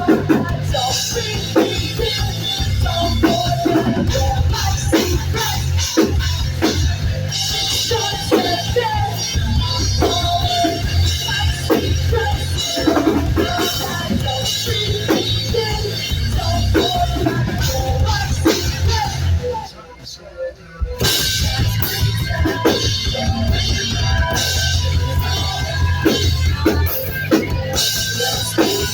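Heavy rock band playing loud and live, with distorted guitars, bass and a drum kit through a club PA, picked up on a phone's microphone. The band stops for about a second roughly two-thirds of the way through, then comes back in.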